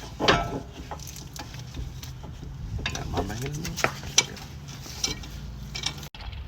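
Light metallic clinks and scraping of a C-clamp being set on a brake caliper and turned to press the caliper piston back.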